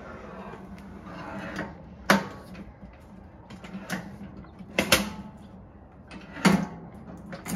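A few sharp clicks and knocks from the Weber Traveler portable gas grill's lid lock and frame being handled, spaced about a second or more apart, the loudest about two, five and six and a half seconds in.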